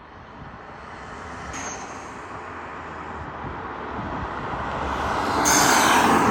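MK8 Golf R fitted with an atmospheric blow-off valve, driving with its engine noise growing steadily louder. A loud rushing sound comes in near the end.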